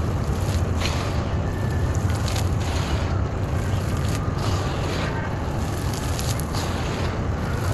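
Dry, dusty clay lumps being crumbled between the hands and falling as powder and grit onto a gravelly heap, with irregular crunching crackles over a steady low rumble.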